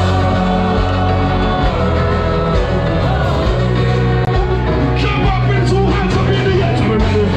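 Loud soca music with a heavy, steady bass line and a singer's voice.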